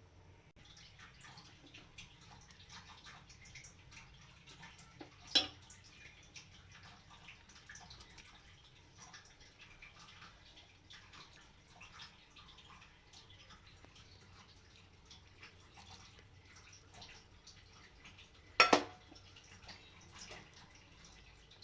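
Chicken with bamboo shoots cooking without oil in a pot, a faint dense patter of small bubbles and crackles. Two sharp knocks cut through it, one about five seconds in and a louder one near the end.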